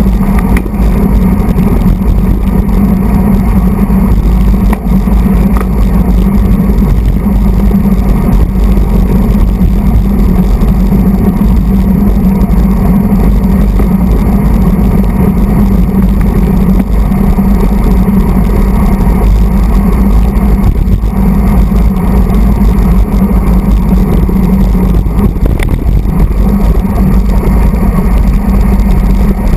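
Loud, steady wind rush buffeting the microphone of a handlebar-mounted camera on a road bike riding at race speed, with a low road rumble underneath.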